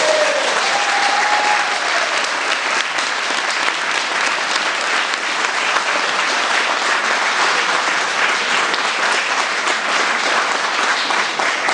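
Audience applauding: a long, steady round of clapping that holds at one level.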